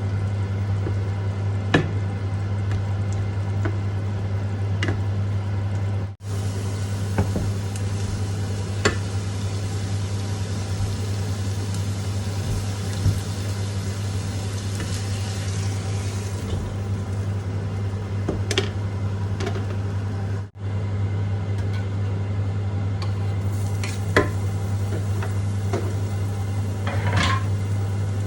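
Food sizzling as it fries in a pan while it is stirred, with scattered sharp clicks of a utensil against the pan, over a steady low hum. The sizzling grows louder and hissier for a few seconds around the middle. It breaks off suddenly twice.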